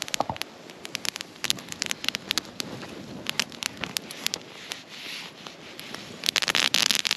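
Softwood campfire crackling, with frequent sharp pops from the burning wood. Near the end a louder steady hiss sets in.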